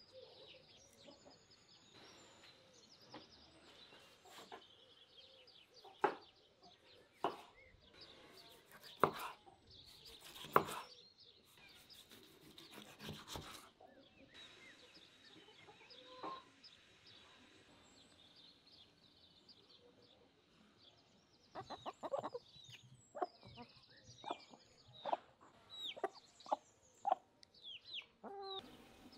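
Chickens clucking, faintly at first and then in a quick run of clucks over the last several seconds. A few sharp knocks come earlier.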